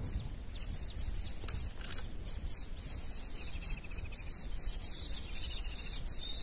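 Small birds chirping and twittering, with many short high-pitched calls repeating and a brief trill a little past the middle. A low steady rumble runs underneath.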